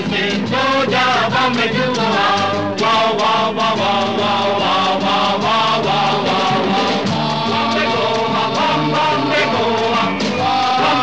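Music: a Hindi film song with a steady beat.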